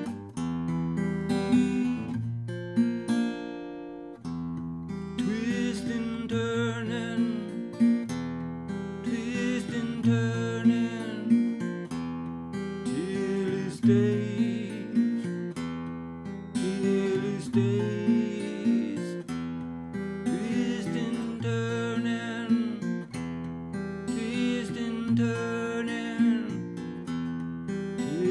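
Acoustic guitar playing a repeating dark riff that comes round about every four seconds, with a man singing over it in phrases.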